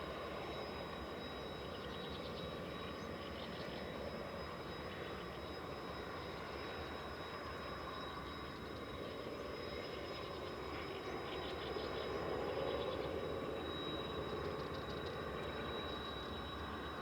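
Steady background rumble and hum of airfield machinery or distant aircraft, with a thin high whine. Faint short chirps of wild birds come now and then, and the rumble swells a little about twelve seconds in.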